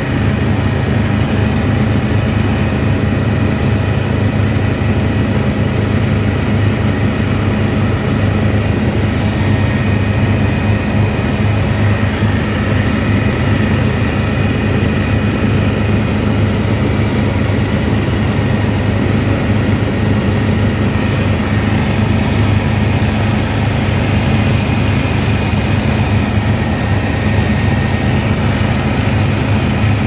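Steady engine drone and rushing air inside an airliner cabin in flight: a constant low hum with a few faint, steady whining tones above it.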